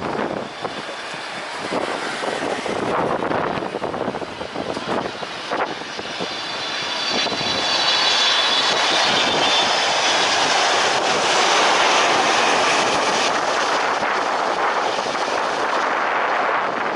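Large jet airliner passing close, its engine noise building over several seconds to a loud rush with a high whine, then easing slightly near the end.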